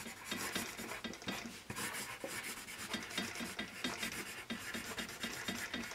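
Paper Mate Mirado Black Warrior #2/HB graphite pencil scratching across paper while writing in cursive, a quick run of short scratchy strokes.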